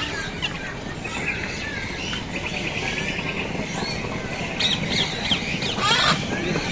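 A mix of birds chirping and calling, with a fast, even trill about two seconds in and a cluster of calls near the end.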